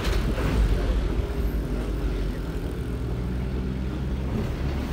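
Car engine and tyre noise heard from inside a slowly moving car: a steady low hum.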